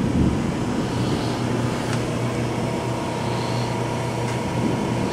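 Steady mechanical hum and whir with a constant low drone, from a machine running in the background.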